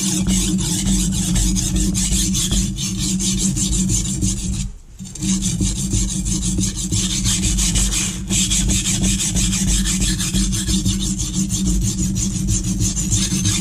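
Steel chef's knife edge being ground by hand on a coarse Norton Crystolon silicon carbide bench stone: a continuous gritty scraping of quick back-and-forth strokes, with a short break about five seconds in. The stone is rocking on its base as it is worked.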